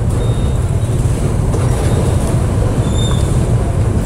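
Motorcycle riding at low speed: a steady low engine rumble with road and wind noise.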